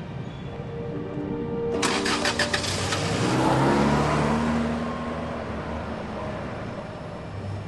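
A car engine starts and revs, swelling to its loudest midway and then fading away, over soft background music.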